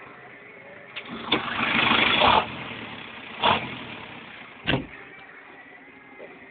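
New Holland TD90D tractor engine running steadily, with four sharp knocks and, a second or so in, a rush of noise lasting about a second.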